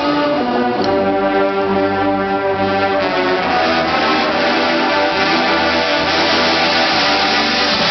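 Marching band brass section playing sustained, full chords that change every second or so.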